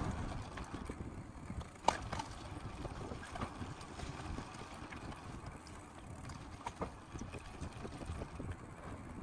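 Low outdoor background noise with scattered faint knocks and one sharper click about two seconds in.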